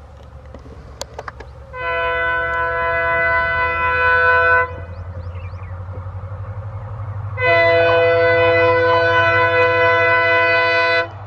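Diesel locomotive horn sounding two long blasts, each about three seconds, over the low rumble of the engine. A few sharp clicks come before the first blast.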